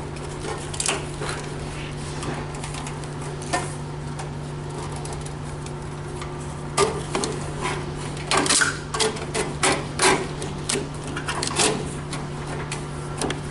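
Wiring harness being pulled through a pickup box's rear pillar: irregular rubbing, scraping and clicks of wire and connectors against the panel, busiest in the second half, over a steady low hum.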